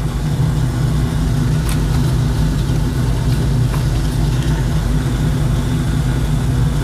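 Steady low-pitched machine drone, a hum of several even tones, with a couple of faint clicks.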